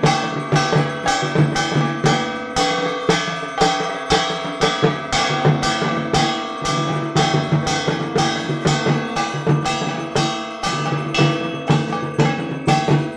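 Dhak drums with a struck brass kansar gong and ringing bells, played in a fast, steady rhythm of about four strokes a second: the drum-and-bell accompaniment of a Durga Puja arati.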